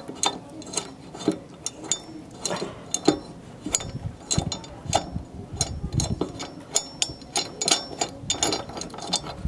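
Irregular metallic clicks and rattles as a loosened mower blade bolt is unscrewed by hand from the crankshaft, the blade and bolt shifting against the blade adapter.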